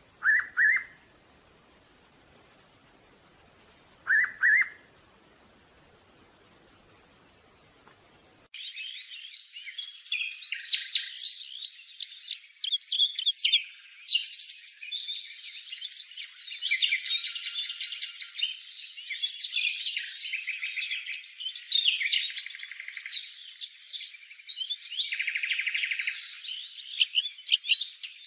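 Hooded pitta giving its short two-note whistle twice, about four seconds apart. From an abrupt cut about eight seconds in, a dense, continuous chatter of high chirps and trills from birds takes over, thin and with no low end.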